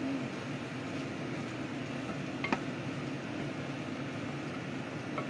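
A wooden spatula stirs adobo in a pot over a steady rushing background noise, and knocks sharply against the pot once about two and a half seconds in.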